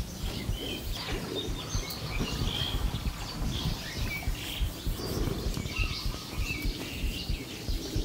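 Small birds chirping in short, repeated calls over a low, irregular rumble.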